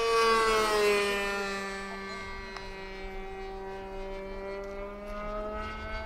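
Gasoline engine of a radio-control model plane running in flight. Its buzz is loudest as it passes close, dips in pitch about a second in, then settles into a steady, fainter drone as it flies away.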